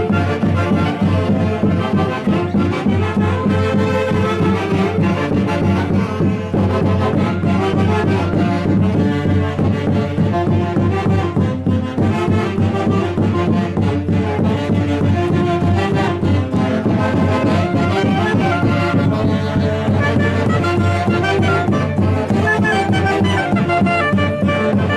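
Live band music in the Huancayo Santiago style, with wind instruments carrying the melody over a steady beat.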